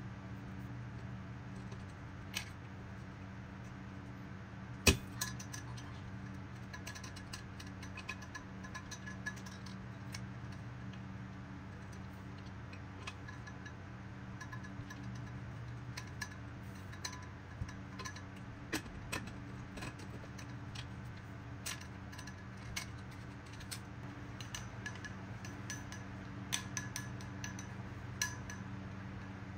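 Light clicks and clinks of a metal carabiner and the stainless-steel Aquaflask bottle being handled while accessories are fitted, scattered irregularly, with one sharper knock about five seconds in. A steady low hum runs underneath.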